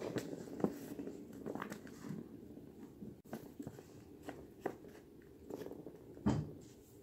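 Plastic ball rolling and rattling in the plastic track of a circular cat scratcher toy as a kitten bats at it. Irregular clicks and knocks, the loudest about six seconds in.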